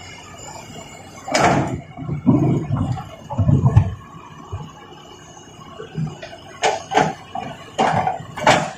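Irregular knocks and scrapes of toys being handled, loudest about a second in and again near the end.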